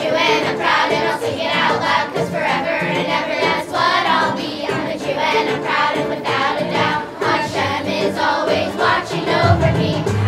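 Fifth-grade children's choir singing a song with instrumental accompaniment; a deeper bass sound comes in near the end.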